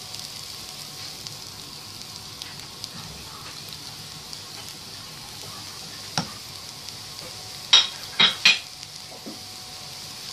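Rice frying in oil and butter in a pan over a gas flame, with a steady sizzle. Around six seconds in there is a single tap, then three loud scrapes of a silicone spatula stirring in the pan, close together.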